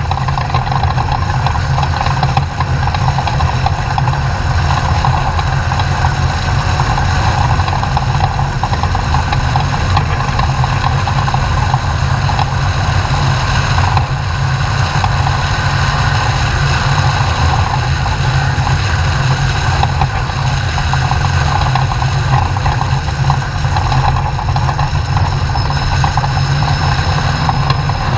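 Off-road race truck's engine running steadily at an even pitch, without revving up or down.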